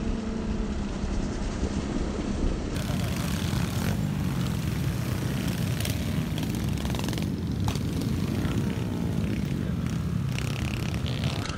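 Small mini bike engine running while riding, its pitch rising and falling with the throttle, under heavy wind rumble on the microphone.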